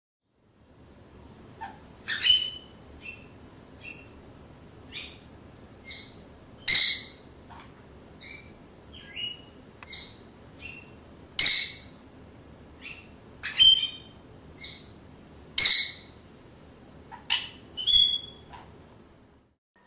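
Two birds singing an antiphonal duet: short, clear chirped notes trade back and forth, with a loud note every few seconds and softer notes between them, over a faint steady hiss.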